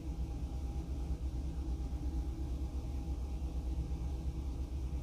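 Steady low rumble of background machinery, with a faint, constant higher tone over it.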